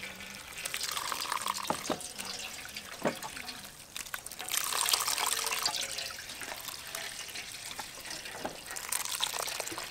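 Coconut milk trickling and splashing through a plastic strainer into a steel bowl as wet grated coconut is squeezed by hand, with louder spells about a second in and again about halfway through.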